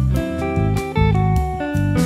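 Instrumental trio of guitar, bass and drums playing: a run of plucked guitar notes over a low bass line, with drum and cymbal hits.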